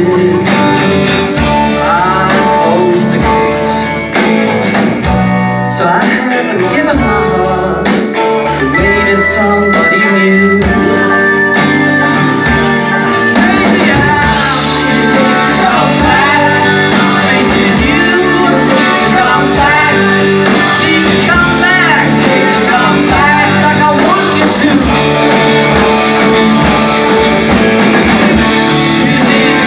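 Live band playing a rock song with electric guitars, loud through the venue's amplification.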